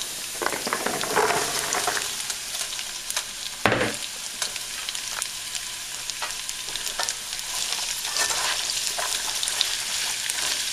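Green beans sizzling steadily after going into hot oil and minced garlic in a wok, louder in the first couple of seconds as they land. There is a single sharp knock about four seconds in, and light clicks of a utensil stirring.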